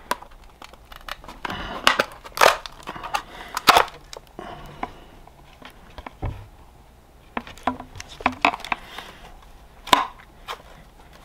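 Plastic battery case and lid being worked apart and flexed against the silicone caulk that seals them: scattered sharp cracks, creaks and knocks of plastic, with quieter handling rustle between.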